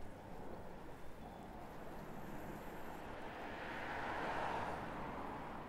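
A road vehicle passing a bicycle on the street: its rushing noise swells to a peak about four seconds in and then fades.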